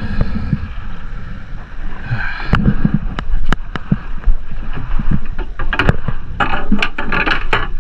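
Sharp knocks and clatters of a spear shaft and gear against a fiberglass boat, over water splashing and sloshing against the hull, more of them in the second half.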